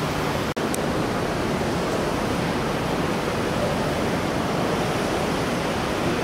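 Steady, loud, even rushing noise of the factory floor, with a very brief drop-out about half a second in.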